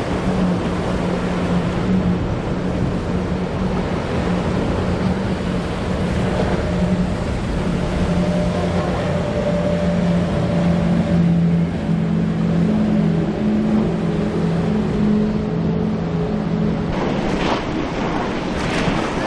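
Quad Mercury 450 hp outboards on a 43-foot Midnight Express running at high speed: a steady engine drone over the rush of spray and wake. Near the end the engine tone drops out and rushing water and wind take over, with a few sharp gusts.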